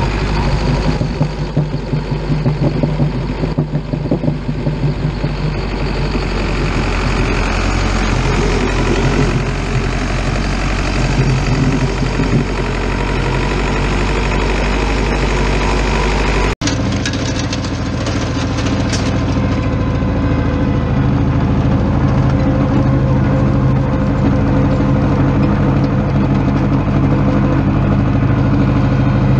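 International Harvester 845XL tractor's diesel engine running as it pulls a meadow harrow. It cuts out for an instant about halfway through, then carries on as a steadier drone.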